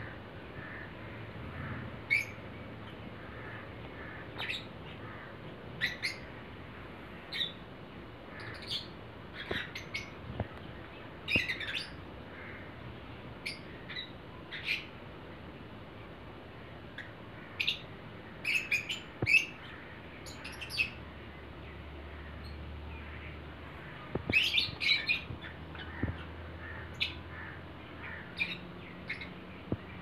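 Lovebirds calling with short, shrill chirps at irregular intervals, now and then in quick runs of several calls.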